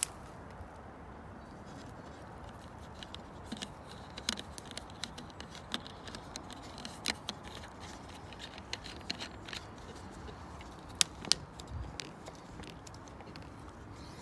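Thin wire being twisted by hand around the neck of a plastic water bottle, giving irregular sharp clicks and scrapes over a steady low hiss, with two louder ticks about three-quarters of the way through.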